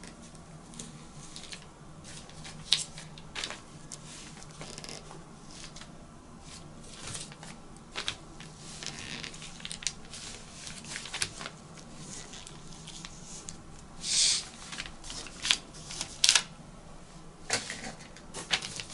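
Rustling of shirt fabric and a paper pattern being handled on a table, with scattered soft clicks and taps as pins are set to mark a bust dart. A louder brushing rustle comes about fourteen seconds in.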